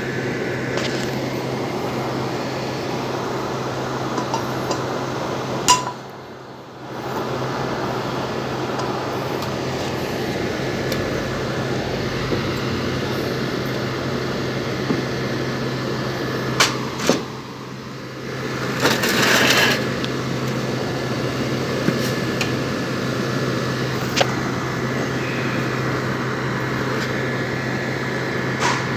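Window-type air conditioner running with a steady hum from its compressor and fan while R22 refrigerant is charged into its low side. The sound dips briefly twice, with a few light clicks and a short hiss about two-thirds of the way in.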